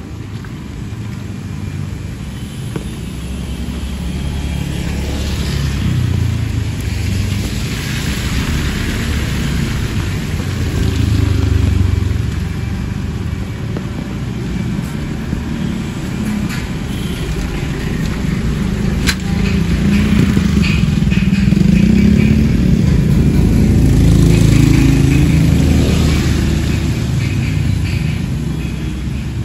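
Motorcycles passing one after another on a wet street, each engine swelling and fading as it goes by, loudest in the second half, over a steady hiss of rain.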